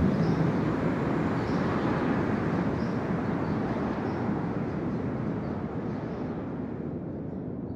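A steady, even rushing noise that fades slowly, with faint short high chirps scattered through it.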